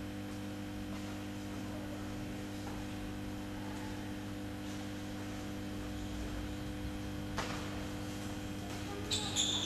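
Room tone of a sports hall with no play going on: a steady electrical hum over faint background noise. There is a single sharp tap about seven seconds in, and louder sound starts just before the end.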